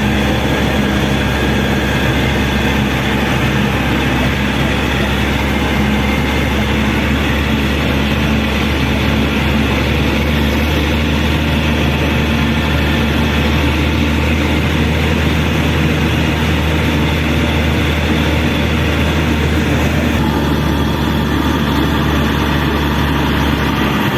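Caterpillar 120K2 motor grader's diesel engine running steadily while the machine travels at road speed: an even, unbroken drone with strong low tones.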